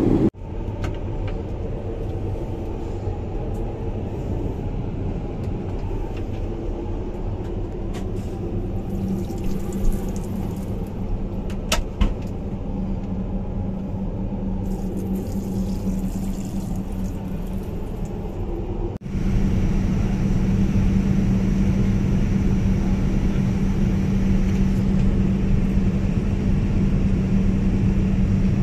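Steady cabin noise inside a Boeing 787-9 airliner: a low rumble with a constant hum, with a couple of short clicks around the middle. About two-thirds through it changes abruptly to a louder rumble with a stronger hum.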